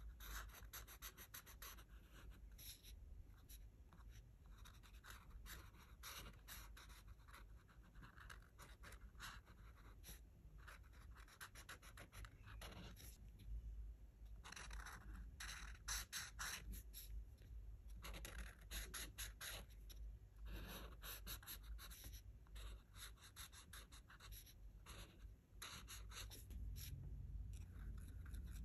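Art marker nibs stroking over colouring-book paper in many short, quick, irregular strokes. The sound is faint and scratchy.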